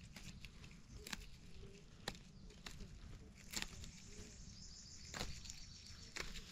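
Young shoots of wild pak wan pa (Melientha suavis) snapped off by hand: a handful of sharp, irregular snaps among faint leaf rustle.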